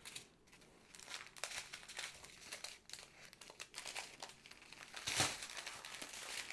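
A long strip of small clear plastic bags of square diamond-painting drills crinkling and rustling as it is handled and unfolded, with many small crackles, loudest about five seconds in.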